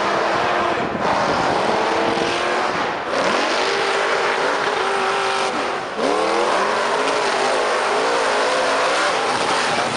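Monster truck engines revving hard under full throttle as two trucks race side by side over dirt, the engine note climbing sharply in pitch twice, around three and six seconds in.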